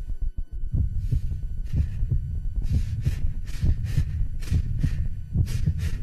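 A low, dense throbbing pulse like an amplified heartbeat, with short hissing sounds over it. The hisses start about a second in and come roughly every half second from about three seconds in.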